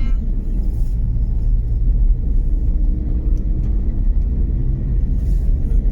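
Land Rover driving slowly on a rough track, a steady low rumble of engine and tyres.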